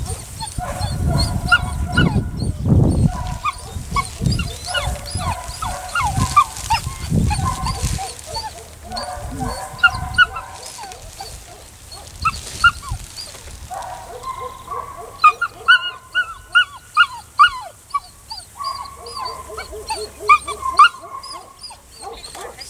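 A dog barking and yelping over and over in short, high, quick runs, most densely in the second half. Low rumbling noise under the first several seconds.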